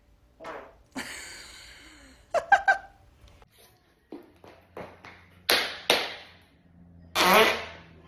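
A string of human farts: a long hissing one about a second in, a few short sharp pops in quick succession, several more short bursts, and the loudest and longest near the end.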